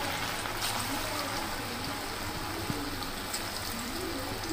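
Chicken pakora pieces deep-frying in well-heated oil in a metal kadai: a steady sizzling hiss of the oil bubbling around the battered chicken.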